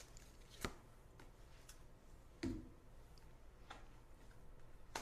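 Faint, irregular clicks and light taps of an oracle card being drawn and handled from a deck, with a soft thud about two and a half seconds in.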